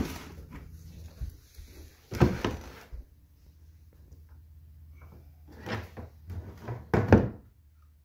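Clunks and rattles of an old STIHL chainsaw being handled by hand with its engine off, its plastic housing and metal parts knocking as it is worked on. There is a loud clatter about two seconds in and two more near the end, over a steady low hum.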